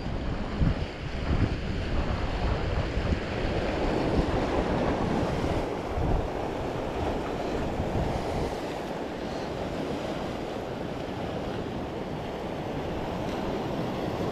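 Waves washing and foaming against jetty rocks just below, with wind buffeting the microphone in gusts, mostly in the first couple of seconds.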